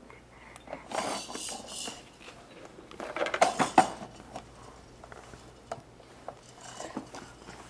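Hard plastic toys on a baby's Exersaucer activity centre clattering and rattling as they are batted and handled, with a rattling burst about a second in and a flurry of clacks around three to four seconds in.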